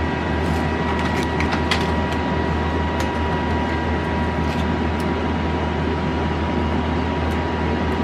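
A steady mechanical hum with a constant noise bed throughout. Over it come several small sharp clicks, most of them in the first two seconds and a couple more later, from plastic packaging and a microSD card and adapter being handled.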